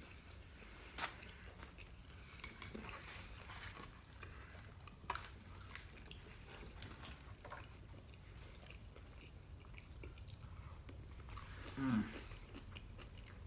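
Quiet close-up chewing and biting of noodles and side dishes, with a few sharp clicks about one and five seconds in and a short hum of a voice near the end.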